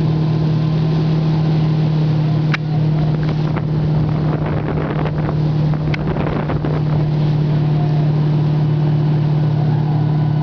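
Motorboat engine running at a steady towing speed, one constant low drone, over the rushing hiss of the churned-up wake behind the stern. A couple of brief sharp clicks come about two and a half and six seconds in.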